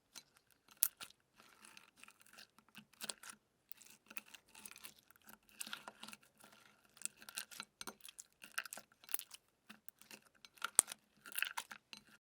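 Crunchy slime being squeezed and pressed by hand, giving many short, irregular crackles and pops.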